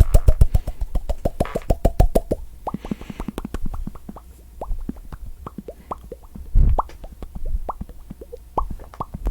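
Close-miked mouth popping: a fast run of pops at a steady pitch for the first two seconds or so, then slower, spaced pops at varying pitches, with one louder, deeper pop about six and a half seconds in.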